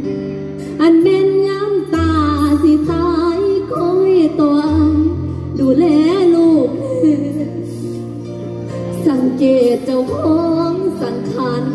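Mor lam singing in the lam rueang tor klon style: one voice sings a sliding, ornamented melody over sustained low bass notes that change every second or two.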